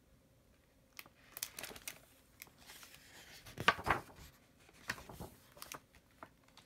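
Book page being turned: a few rustles and crinkles of the paper, with light taps as the page is handled. The loudest rustle comes near the middle.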